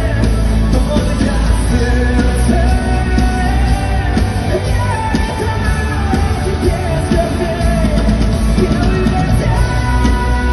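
Live amplified rock band playing with heavy bass, with a voice singing long, wavering notes over it.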